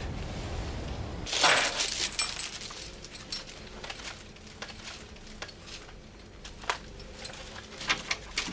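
A low outdoor hum gives way, about a second in, to a loud brief clatter. Then come scattered light clinks and knocks of things handled on a kitchen counter, and bare feet on a tiled floor.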